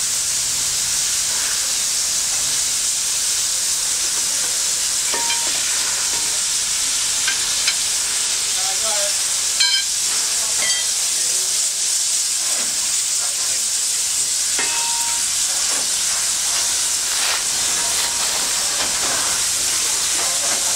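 Standing NSWGR 38 class Pacific steam locomotive 3801 in steam, giving off a steady high hiss of escaping steam. A few short metallic clinks sound about halfway through.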